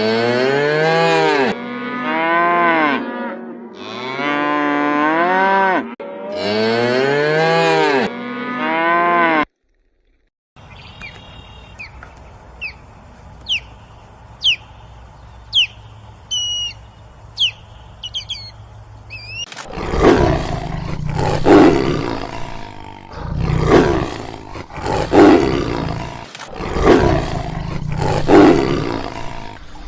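A series of animal calls. First come four long calls that rise and fall in pitch. After a brief silence there are faint high chirps over a low hum. From about two-thirds of the way in, loud rough calls repeat roughly every second and a half.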